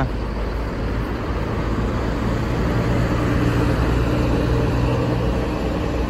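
Intercity coach bus's diesel engine running as the bus rolls in close by: a steady low rumble with a faint hum that swells a little towards the middle.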